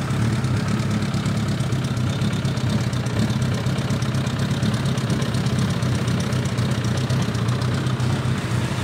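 Suzuki GSX750F motorcycle's inline-four engine idling steadily.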